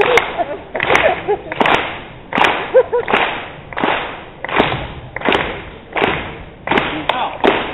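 Crowd clapping together in time to a slow, steady beat, about three claps every two seconds, each clap echoing briefly, with a faint voice between some claps.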